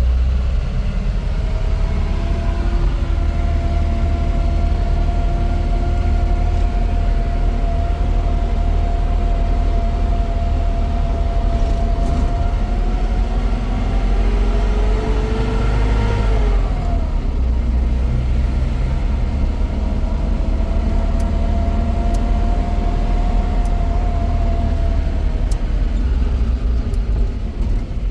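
Vehicle engine running as it drives, a heavy steady rumble with a held whine that climbs in pitch and falls away about halfway through, then settles back to a steady note.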